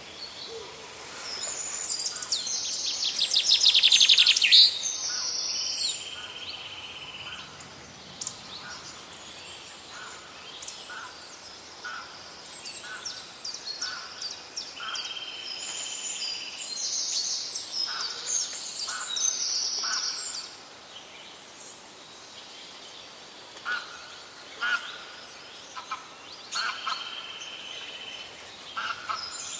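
Several birds singing and chirping, in short whistled notes and trills, with a fast, loud trill about four seconds in.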